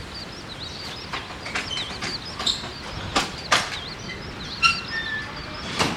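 Small birds chirping steadily and continuously, with a couple of short whistled notes near the end, over several sharp knocks at irregular intervals.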